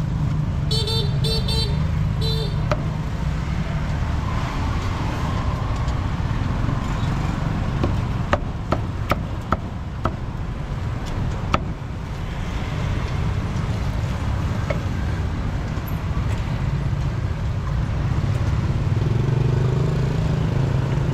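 Steady street-traffic rumble with a few short vehicle-horn beeps about a second in. Around eight to twelve seconds in, a meat cleaver strikes a wooden chopping block in about half a dozen sharp knocks, cutting roast pork.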